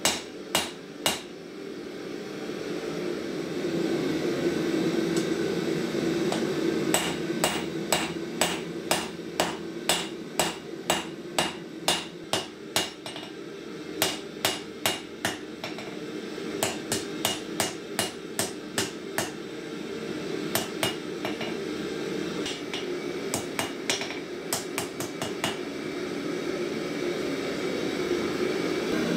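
Hand hammer striking a red-hot steel file on an anvil, forging it into a drawknife blade: runs of ringing blows about two a second with short pauses between them. A gas forge burner runs steadily underneath.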